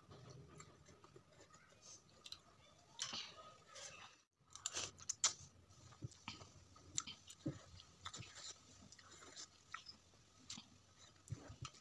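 Slurping and chewing spicy Korean instant noodles: a run of short mouth sounds, with a brief break to silence about four seconds in.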